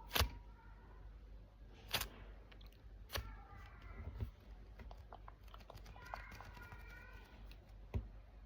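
A foam squishy toy handled close to the microphone for ASMR: four sharp taps, the loudest near the start, with lighter ticks between.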